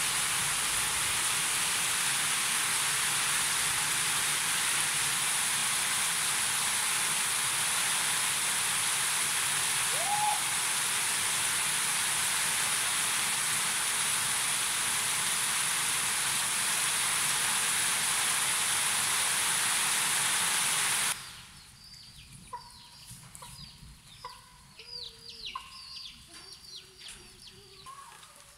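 Heavy rain falling steadily onto wet ground and puddles, with one short rising chirp partway through. The rain cuts off suddenly about three quarters of the way in, and chickens are then heard faintly, clucking and giving short high peeps that fall in pitch.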